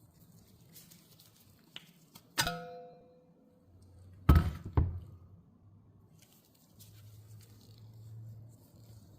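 A hard object strikes with a brief ringing clink, then two heavy thuds about half a second apart, over a faint low hum.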